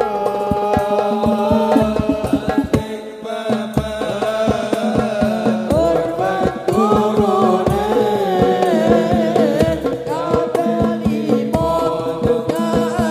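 Sholawat devotional song: several voices singing a gliding, ornamented melody over hadrah frame drums (terbang) beating a busy rhythm.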